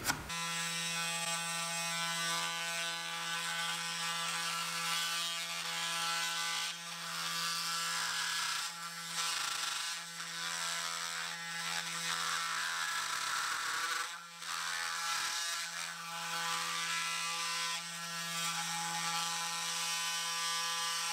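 Oscillating multi-tool with a triangle-tooth plunge blade cutting into an old pine door, giving a steady buzz that dips briefly several times as the blade is worked through the wood.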